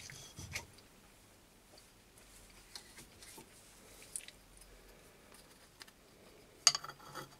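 Faint handling noises, then, a little over six and a half seconds in, a sharp metallic click followed by a few small clatters as a carbide-tipped lathe tool bit is set down on a steel lapping table.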